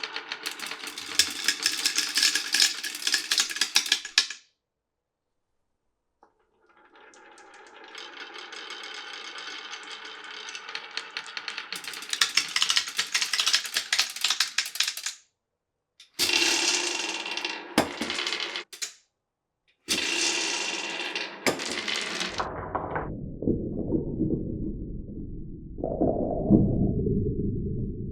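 Glass marbles rolling and clattering down a wooden marble run: rapid rattling and clicking in several short stretches, each cut off abruptly to silence. In the last few seconds the rolling turns duller and lower.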